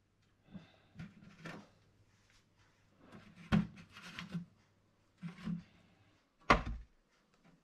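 Bread rolls being handled on an electric toaster: a few knocks and light clatter, then a single loud clunk about six and a half seconds in. A faint steady hum runs underneath and stops just before that clunk.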